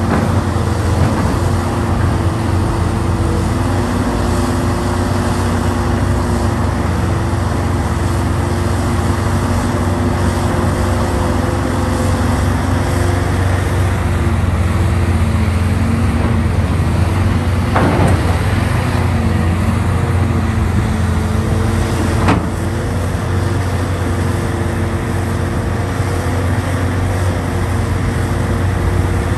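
Hitachi Zaxis 670 hydraulic excavator's diesel engine and hydraulics running steadily as it digs and swings loads, a loud low drone with a steady hum. Two sharp knocks come about two-thirds of the way through.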